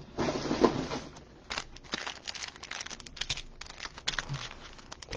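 Trading card pack and box wrappers crinkling and tearing as they are handled and opened, a rustle followed by a scatter of small irregular crackles.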